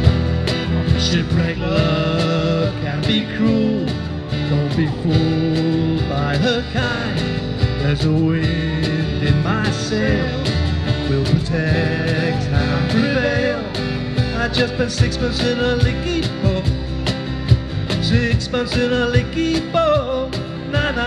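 Live folk-rock band playing through PA speakers: acoustic and electric guitars over a steady beat, with a shifting lead melody on top. The song has a shanty-like feel.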